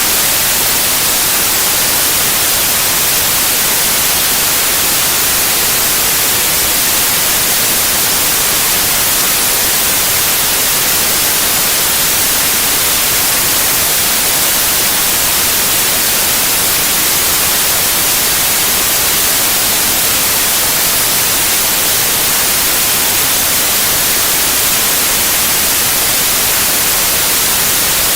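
Steady, loud white noise: an even hiss, unchanging throughout.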